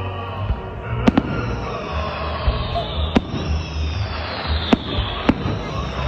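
Fireworks salute: several sharp bangs of bursting shells, a couple of them in quick succession about a second in, over a continuous crackling hiss that starts about a second in.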